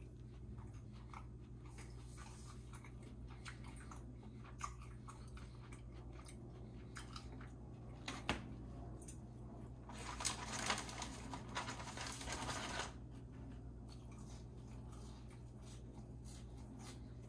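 A person chewing and biting fast food, with scattered crunchy clicks. About ten seconds in there is a louder, denser stretch lasting nearly three seconds.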